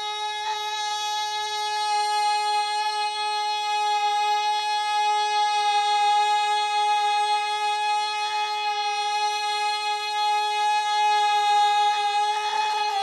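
Music: one long note held perfectly steady on a reed wind instrument in the folk-song accompaniment, unbroken throughout.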